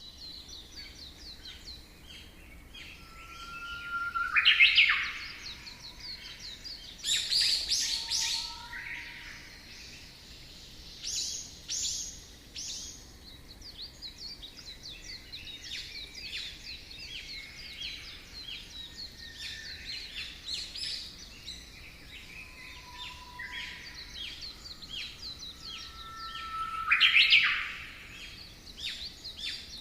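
Several birds chirping and singing together in a steady chorus of quick chirps and trills. About four seconds in, and again near the end, a louder call holds a note and then sweeps upward.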